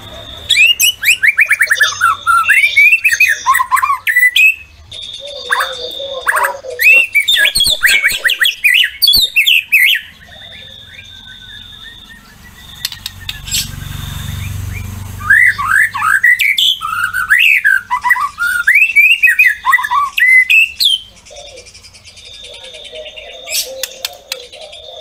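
White-rumped shama singing loudly in rapid bouts of sweeping whistles and chattering notes, with short pauses between the bouts.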